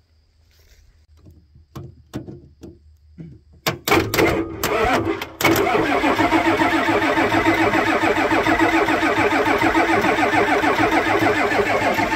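Ford 7.3 IDI diesel V8 being cranked by its starter on a cold start. It starts in a few stuttering bursts about four seconds in, then turns over steadily with a rapid, even pulsing. The engine does not catch.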